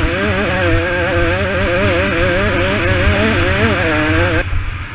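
KTM supermini two-stroke dirt bike engine running hard, its pitch wavering up and down as the throttle is worked over the trail, with rough wind rumble on the helmet microphone. Near the end the throttle closes and the engine drops back briefly.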